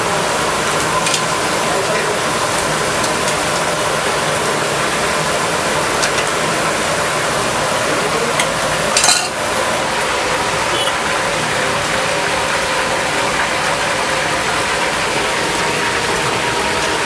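Chicken legs deep-frying in hot oil in an iron kadai, a steady sizzle, with a metal ladle clinking and scraping against the pan a few times, the loudest clank about nine seconds in.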